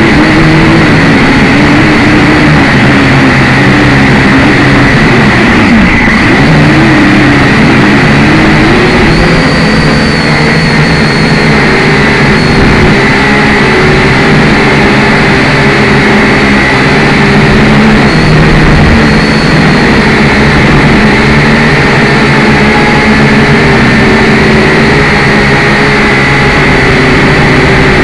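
Syma X5C toy quadcopter's motors and propellers whining loudly and continuously, the pitch wavering up and down for the first several seconds, then holding steadier.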